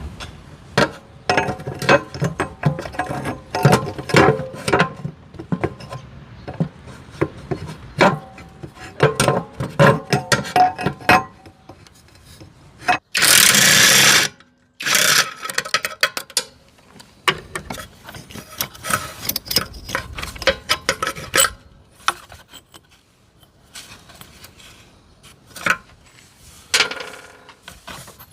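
Metal tools and small engine parts clinking, knocking and scraping during hands-on repair work on a two-stroke scooter engine, with a loud hiss of about a second and a half about halfway through and a shorter one just after.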